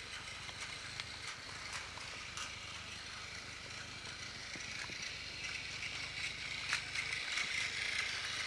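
Battery-powered TOMY Plarail toy train running: a steady whirr from its small motor and gears, with scattered clicks, growing a little louder near the end.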